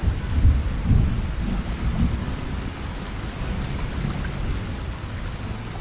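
Rain falling steadily with low rumbles of rolling thunder.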